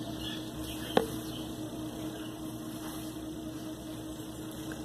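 A steady background hum, with a single light tap about a second in.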